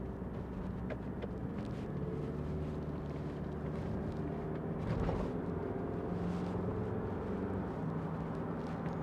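Engine and road noise of a Mitsubishi Shogun with the 3.2-litre four-cylinder turbodiesel, heard from inside the cabin while driving: a steady low drone whose pitch shifts slightly, with a brief bump about five seconds in.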